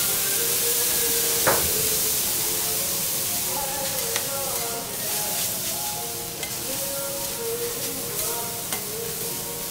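Garlic fried rice sizzling on a hot teppanyaki griddle just after liquid is poured onto it: a loud hiss of steam that is strongest at the start and slowly eases. Metal spatulas clack sharply on the griddle as the rice is chopped and turned, loudest once about a second and a half in.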